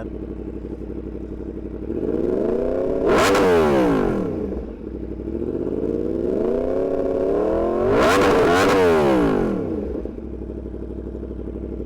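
2024 Yamaha MT-10's crossplane inline-four, fitted with a RaceFit Growler X exhaust and an ECU tune, idling and revved twice, each rev climbing and falling back to idle. It is loud.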